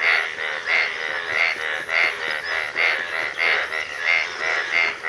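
Repeated animal calls in a steady rhythm, about three a second, each a short pulsing call.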